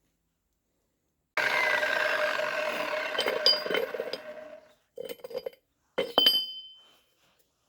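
Metalwork on tractor axle parts: a steady ringing mechanical sound starts suddenly and dies away over about three seconds, followed by several sharp metallic clinks of tools or parts.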